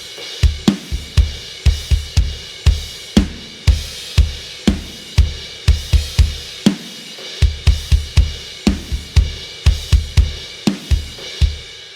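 Sampled acoustic drum kit from EZdrummer 3's Pop Punk EZX library playing a driving rock beat: punchy kick and snare under a steady wash of hi-hat and cymbals.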